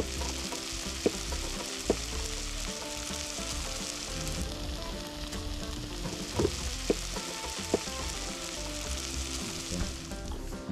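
Food sizzling steadily as it fries, with a few sharp clicks of utensils. Quiet background music with held notes plays underneath.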